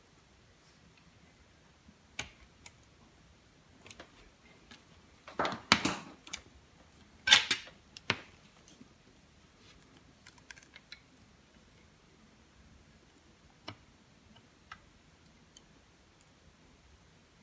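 Small hand tools handled on a wooden desk: scattered light clicks and ticks, with two louder brief scraping rustles about five and seven seconds in, as multimeter probes are put down and a soldering iron and tweezers are taken up.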